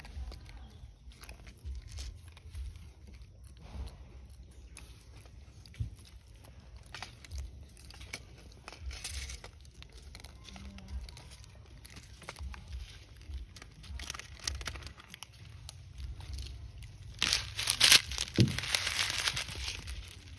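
Light crunching and rustling of dry leaves and grit as long-tailed macaques move about on concrete, in scattered small clicks. About seventeen seconds in a louder, hissing burst of noise lasts two to three seconds.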